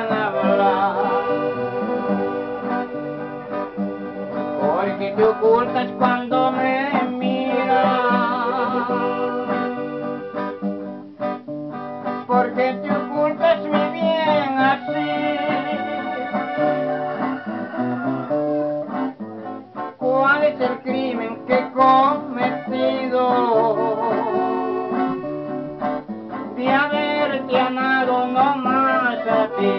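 A small string band playing a song: acoustic guitars strumming and plucking chords under a wavering melody line.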